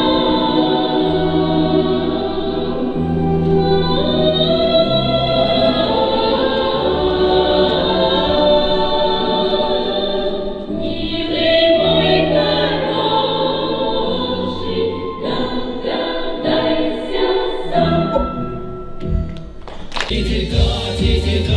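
A choir singing a slow song over long held low notes. About twenty seconds in, the sound changes abruptly to a louder, noisier musical backing.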